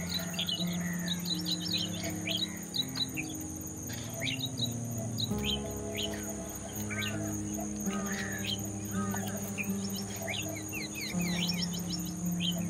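Striated babblers chattering: many short, falling chirps, overlapping and in quick runs. A steady high insect drone and low, held background music notes that shift in pitch every second or so run underneath.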